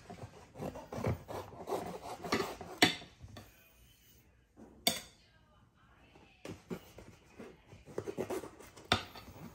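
Knife sawing and scraping through a chocolate panettone and its paper baking mould while hands tear the soft loaf apart. There are two spells of scratchy rubbing with a pause in the middle, and a few sharp clicks.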